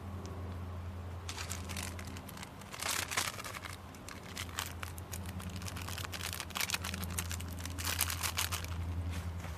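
Crinkling and rustling, with many quick crackles, over a steady low hum.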